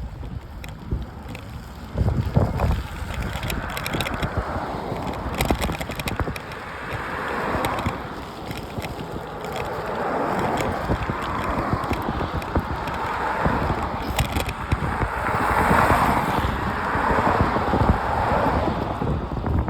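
Wind buffeting the microphone over the rolling noise of a bike's tyres on pavement, swelling and easing as the ride goes on.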